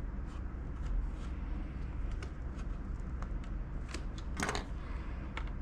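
Faint clicks and handling noise from work on an open laptop, with a short scrape about four and a half seconds in, over a steady low hum.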